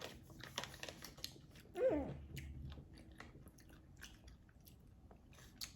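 Close-up chewing and biting with small crunches and sharp clicks from the mouth. About two seconds in there is one short, falling vocal sound.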